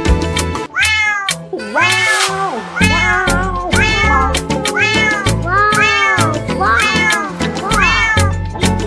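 A cat meowing over and over, about once a second, each meow rising and falling in pitch, over dance music with a steady beat.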